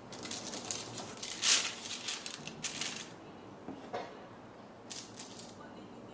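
Grease-proof paper rustling and crinkling under the hands as a lined tray is shifted and dough balls are set down on it. The crinkling is dense for about three seconds, loudest around a second and a half in, and comes back briefly about five seconds in.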